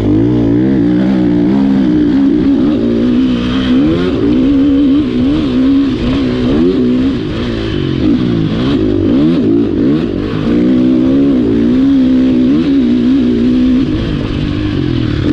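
Motocross bike's single-cylinder engine, recorded on board, revving up and dropping back over and over as the throttle opens and closes and the rider shifts through the gears.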